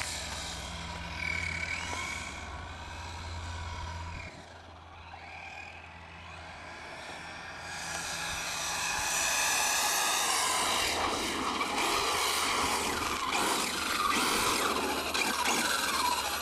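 Electric whine and drivetrain noise of a 1/5-scale RC monster truck's Castle Creations Mamba Monster 2200kv brushless motor, running on one motor of its twin setup. The sound fades as the truck runs off down the lot, then grows loud over the second half as it comes back at speed.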